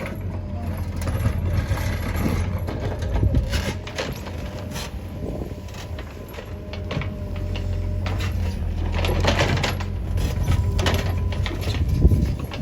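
Cat 432F2 backhoe loader's diesel engine running steadily, with scattered knocks and clatter from the machine at work.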